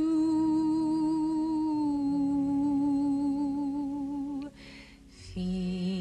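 Music: a woman's voice holds one long, soft, steady note over a gentle accompaniment. About four and a half seconds in, it breaks off for a breath, and the next sung phrase begins on a lower note near the end.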